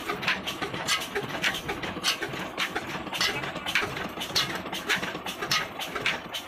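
Old Ruston Hornsby diesel engine running steadily under load, driving a centrifugal water pump by flat belt, with a sharp even clacking about three to four times a second over a low rumble.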